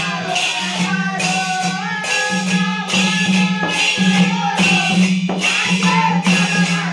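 Men singing a devotional bhajan together, accompanied by dhol drums and jingling percussion that keeps a steady, even beat.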